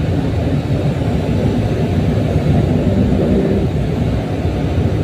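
Tugboat's diesel engines running underway: a loud, steady low rumble heard inside the wheelhouse.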